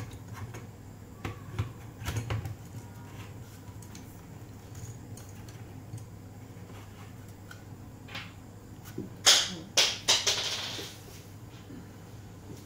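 Handling sounds of a plastic weather-sensor housing being turned and seated on an aluminium mounting flange: faint clicks and knocks, then two sharp clicks about nine and ten seconds in, followed by a brief scrape.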